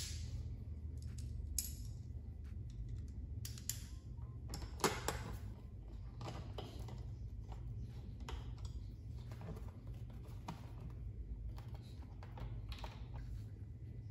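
Scattered small clicks and taps of a screwdriver, bolt and washer being handled while a headlight bracket is bolted onto the dirt bike's front plate, with a few sharper clicks near the start and about five seconds in. A low steady hum runs underneath.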